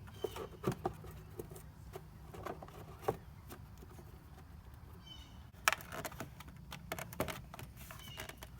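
Scattered plastic clicks, knocks and rustling as the air filter is swapped in the air-filter housing, with one sharp knock a little past halfway.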